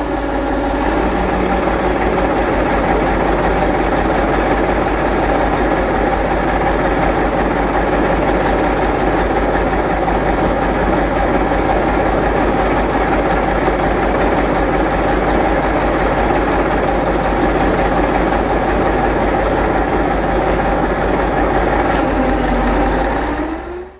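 Heavy truck engine running steadily at low revs close by, its pitch dipping briefly near the start and again near the end before the sound cuts off suddenly.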